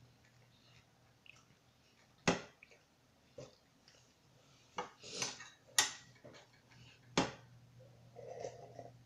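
Eating cereal from a ceramic bowl: three sharp knocks against the bowl with crunching mouth noises between, then a short slurp of milk as the bowl is tipped up to drink near the end.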